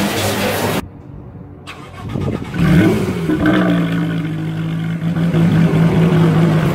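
A car engine running steadily cuts off abruptly. After a lull of about a second, an engine revs up with a rising pitch and settles into a steady drone.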